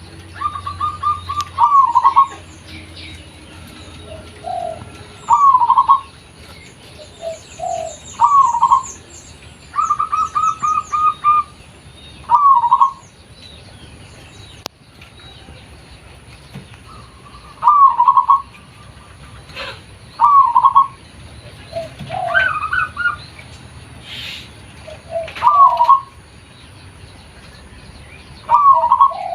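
Zebra dove cooing: repeated phrases every two to three seconds, some opening with a quick run of short staccato notes and each ending in a fuller coo, with softer, lower coos between. Faint high chirps from another small bird are heard here and there.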